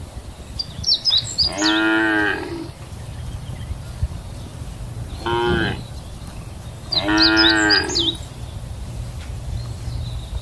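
Cows mooing three times: two long moos with a short one between them. A steady low rumble runs underneath.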